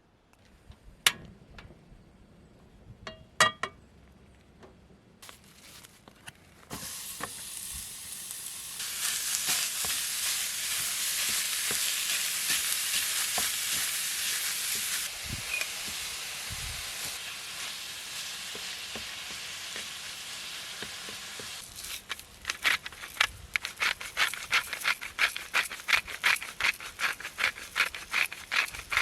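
Food sizzling in a pan for about fifteen seconds, after a few sharp clicks. Near the end a utensil clinks rapidly and steadily, about three times a second, as in stirring or whisking.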